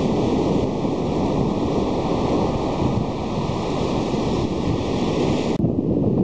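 Surf washing onto a sandy beach, a steady rush with wind noise on the microphone. It changes abruptly a little before the end to a duller wind rush.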